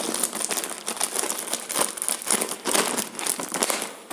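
Plastic courier mailer bag crinkling and crackling as it is handled and pulled open by hand.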